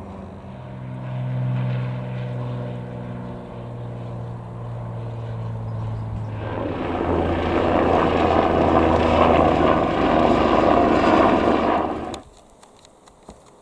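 Light single-engine propeller planes flying low overhead. A steady piston-engine drone is followed, about six seconds in, by a louder, rushing pass, which cuts off abruptly near the end and leaves only faint outdoor background.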